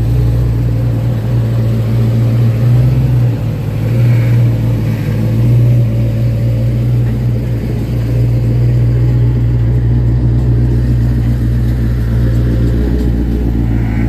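Car engine running, a steady low rumble that swells slightly a few times.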